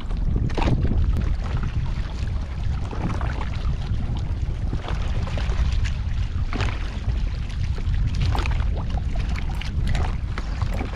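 Wind rumbling on the microphone, with water sloshing around a bamboo raft's poles and scattered light clicks and ticks.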